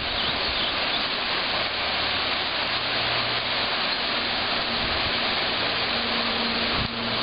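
Rushing water of shallow river rapids, a steady even hiss.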